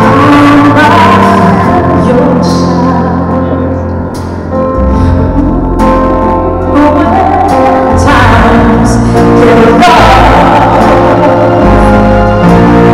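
Live pop ballad: a woman sings long held notes with vibrato over a band of electric guitar, bass, drums and keyboards, heard from the audience in a large hall.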